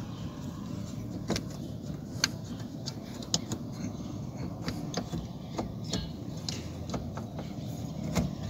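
Scattered light clicks and knocks, about a dozen at irregular times, from the plastic and metal parts of a 1997 Ford Windstar steering column being handled and worked loose by hand, over a steady low hum.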